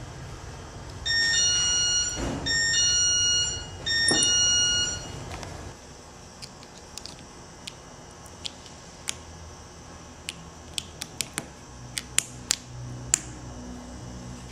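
Three electronic beeps, each about a second long and made of a few steady high tones, followed by scattered light clicks at irregular intervals.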